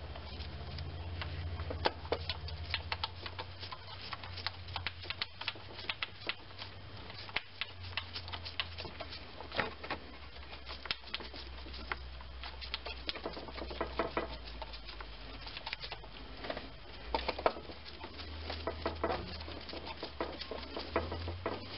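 Irregular light clicks and taps of a gloved hand and metal parts working in an engine bay as a replacement starter motor is held in place and a mounting bolt is started by hand, over a low steady hum.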